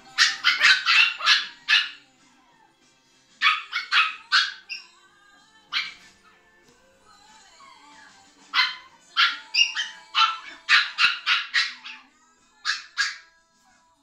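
Four-week-old Toy Schnoodle puppy giving runs of short, high-pitched yips and squeals, the longest run near the end.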